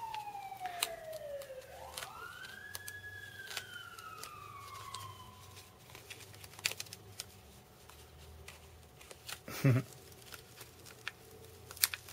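An emergency-vehicle siren wails, its pitch sliding down, sweeping up about two seconds in, then falling away again by about five seconds. Small crackles of adhesive tape backing being peeled and handled run throughout, with a brief thump near ten seconds.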